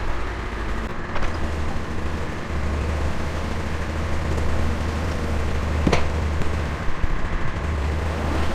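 Tractor engine running steadily, with a sharp click about six seconds in.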